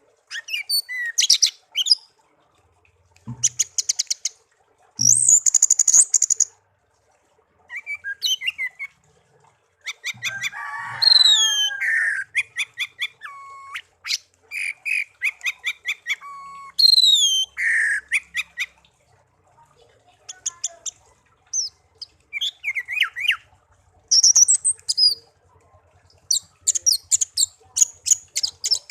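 Pet songbird singing a varied song in short phrases with brief pauses: rapid trills, quick whistled glides up and down, and runs of repeated notes.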